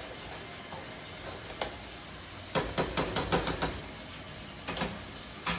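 Ground beef sizzling steadily in a frying pan. About halfway through, a metal spoon knocks against a pot in a quick run of about seven clinks, with two more near the end.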